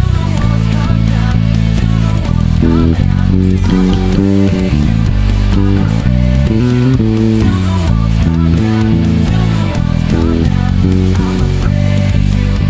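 Electric bass guitar playing the song's bass line over a full band track, with a run of higher, moving notes through the middle.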